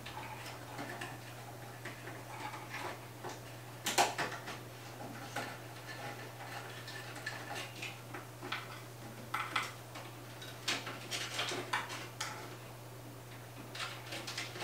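Small clicks, taps and rustles of cables and plastic parts being handled and tucked inside a metal server chassis, with one sharper click about four seconds in and more clicks near the end, over a steady low hum.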